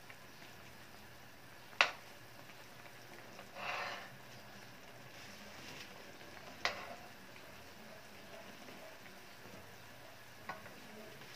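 Sweet-and-sour fish sauce simmering in a wok with a faint steady sizzle while a metal ladle stirs it. The ladle clacks sharply against the pan twice, with a short scraping swish through the sauce in between and a lighter tap near the end.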